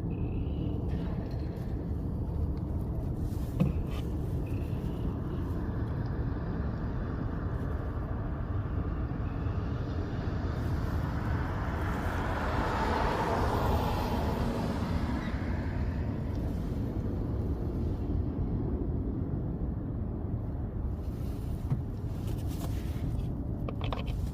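Steady low outdoor traffic rumble, with a vehicle passing by that swells and fades about halfway through.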